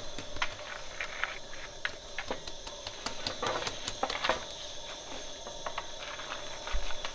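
Hot pebbles on a sangak oven's stone bed clicking and rattling as a long pole scrapes under the baked flatbread and drags it off, in scattered irregular taps with a busier cluster about halfway through. A steady high-pitched hum runs under it.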